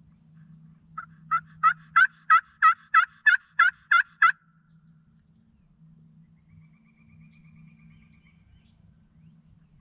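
Head Buster turkey call run in a series of about ten yelps, roughly three a second, each note sliding down in pitch, stopping a little after the middle.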